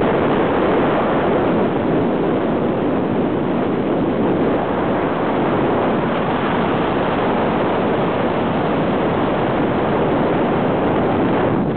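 Steady rush of wind and tyre noise from a moving car, the wind loud on the microphone.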